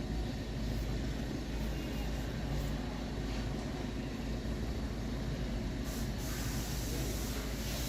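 Steady low mechanical hum with a hiss over it, holding even throughout, with no distinct clicks or strokes.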